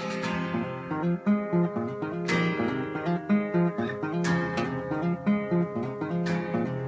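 Acoustic guitar playing a picked folk pattern, with a sharper strum about every two seconds.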